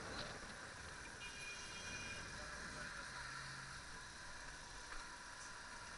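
Faint, steady city-street noise with distant traffic. A brief high-pitched whine comes about a second in, and a short low hum around three seconds in.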